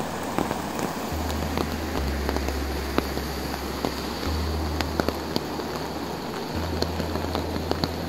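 Steady rain falling, with scattered sharp ticks of drops landing close by, over the rush of a rocky stream in spate.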